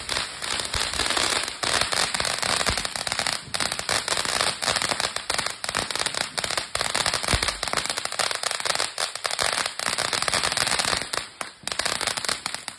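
Ground fountain firework spraying, a steady hiss packed with dense, rapid crackling pops. It thins out and stops abruptly near the end as the fountain burns out.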